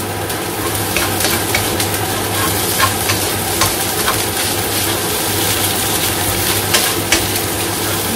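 Egg fried rice sizzling in a hot wok while it is stirred and turned with a wooden spatula, with scattered light clicks and scrapes of the spatula against the pan.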